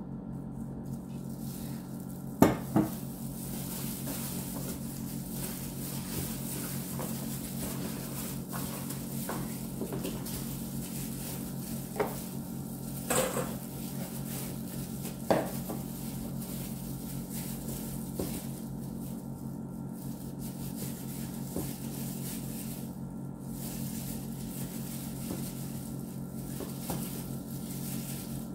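Gloved hands mixing chicken pieces in marinade in a speckled enamelware roasting pan, with a few sharp knocks against the pan; the two loudest come close together about two and a half seconds in. A steady low hum runs underneath.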